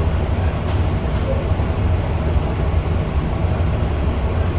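Steady low rumble and hum inside a stopped commuter train car.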